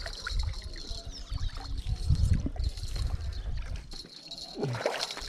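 Water splashing as a small hooked carp is reeled in to the creek bank, over a low rumble of wind on the microphone. A steady high insect buzz runs throughout.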